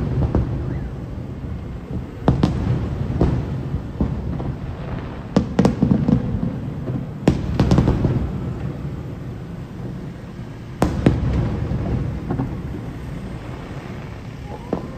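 Aerial fireworks shells bursting in the sky: sharp bangs, several in pairs, every second or few, over a steady low rumble from the display.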